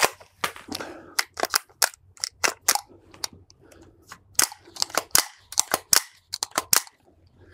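AR-15 rifle being handled: a quick, irregular series of sharp metallic clicks and clacks from the charging handle, bolt and magazine as the action is worked by hand.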